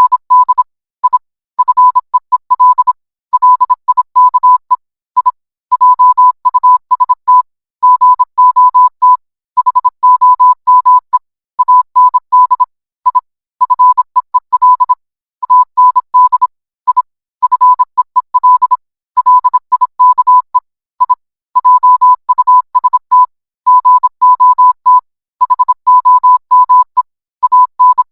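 Morse code beeps: a single steady tone keyed on and off in short dots and longer dashes, with brief gaps between letters and longer gaps between words.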